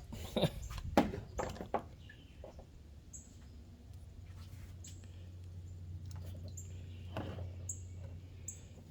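A few sharp knocks and clatter in the first two seconds, then a steady low hum with five short, high-pitched chirps spread over the last six seconds.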